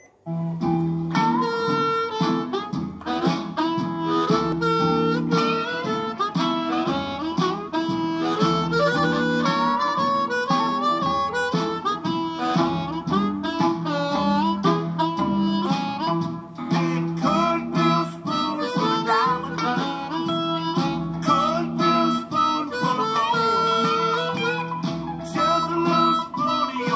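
A Hohner Blues Harp harmonica in A, cupped against a Shure Green Bullet microphone and played through a small Boss Katana Mini amplifier, giving an amplified, distorted blues-harp tone as it plays a blues tune. It comes in suddenly right at the start.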